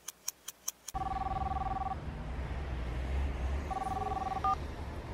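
A clock ticking fast, about five ticks a second, for the first second. Then steady street traffic noise, over which a mobile phone rings twice with a trilling two-tone ring. The second ring is cut short by a brief beep as the call is answered.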